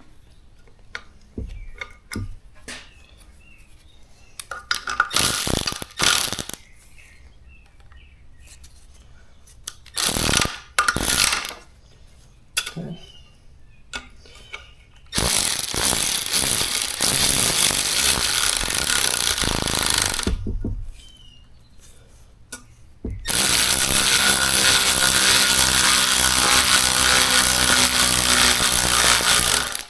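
Metal parts clicking and knocking while valve springs are being fitted, then a power tool running in two long stretches, about five seconds and then about seven seconds, the second with a steady pitched whine.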